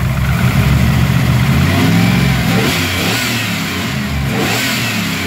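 1995 Pontiac Trans Am's LT1 V8 with a TPIS camshaft, fully warmed up, given light revs by hand at the throttle linkage. The engine note rises and falls back a couple of times.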